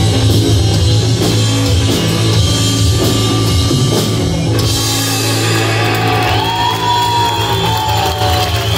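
Live rock band playing loud: electric guitar, bass and drum kit together. About halfway the drums stop and a long held note rings on, bending slowly up and down.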